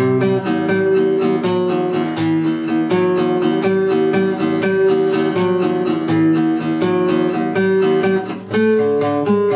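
Guitar chords strummed in a steady rhythm, an instrumental passage of a song with no voice, with a brief break about eight and a half seconds in.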